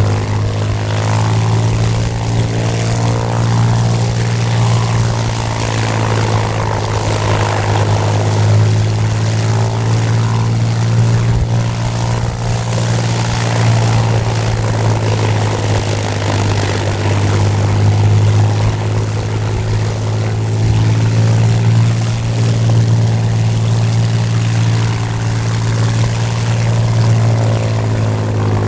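A WWII fighter's liquid-cooled V-12 aero engine and propeller running steadily on one unchanging note, with a slight shift in pitch near the end.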